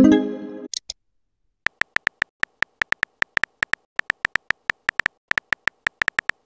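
Phone texting app sound effects: a chime right at the start as a message arrives, then, after a short pause, a quick run of keyboard tap clicks, about five or six a second.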